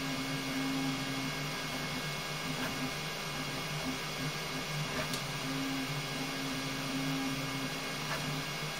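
Flashforge Adventurer 5M Pro 3D printer running a print: its motors give two low steady whines that start, stop and change as the print head moves, over a steady hiss of fans.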